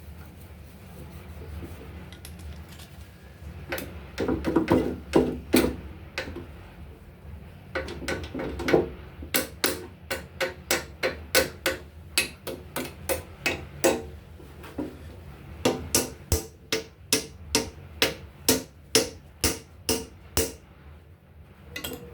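Hammer striking metal: a few bunched blows, then a long run of evenly paced strikes at about two a second, each with a short ring.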